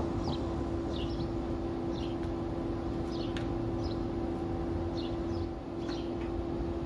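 Birds chirping, short falling chirps repeated every half second to a second, over a steady mechanical hum and low rumble.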